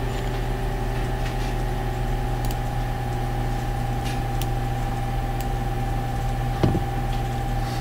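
A steady hum with several fixed pitched overtones, with a few faint clicks and a brief low sound near the end.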